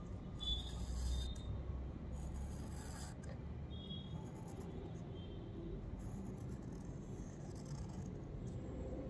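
Graphite pencil scratching across paper as lines are drawn: two longer strokes in the first few seconds, then lighter, shorter strokes.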